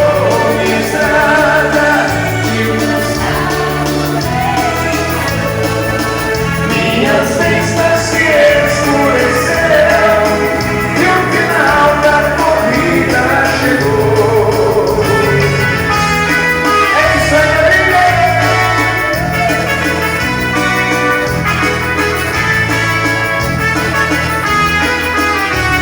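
A live dance band playing a waltz, with a steady, even bass beat under a shifting melody line.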